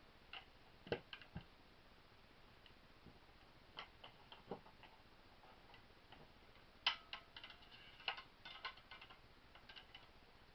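Small metal parts of a Winchester 1977XS air pistol clicking and tapping as they are handled and fitted during reassembly. Scattered light clicks, then a cluster of sharper clinks with a short metallic ring in the second half.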